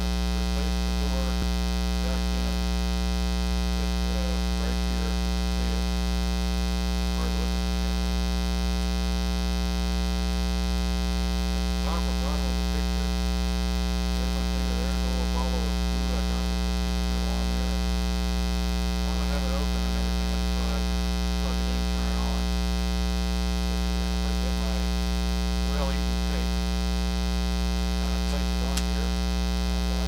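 Steady, loud 60 Hz mains hum with its string of overtones, induced into the recording by powering the camera from its AC adapter: a ground-loop fault in the audio.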